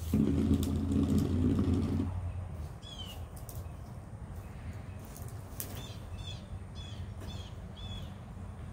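A low engine-like rumble, loudest for the first two seconds and then settling to a steady hum. Over it, from about three seconds in, a bird gives a run of short repeated chirps.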